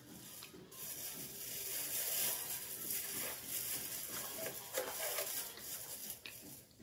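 A soft bread bun torn apart by hand: a crackly, rustling tearing of crust and crumb that fades near the end.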